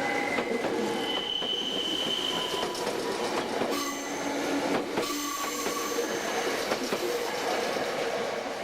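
Meitetsu train running past over the rails, its wheels squealing in several held high tones over a steady rumble and scattered clicks of wheels on rail joints.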